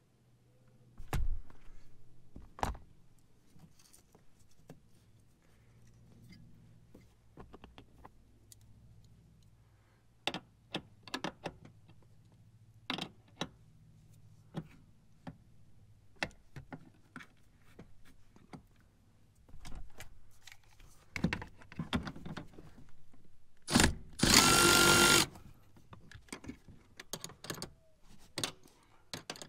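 Scattered clicks and knocks of hands and tools on the seat frame, then a handheld cordless power tool runs in one short burst of about a second and a half, near the end, with a steady whine. It is backing out the rear seat's mounting hardware.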